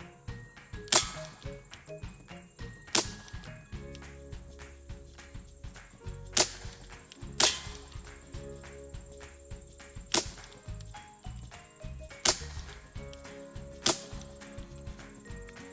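Sig Sauer 1911 CO2-powered BB pistol firing seven sharp pops, irregularly spaced one to three seconds apart.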